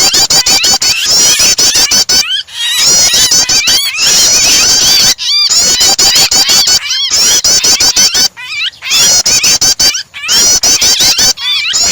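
Prenjak (prinia) calls mixed with a trapped bird's distress calls: fast, shrill, repeated high chirps, looped for bird training. The chirping stops abruptly for a moment several times.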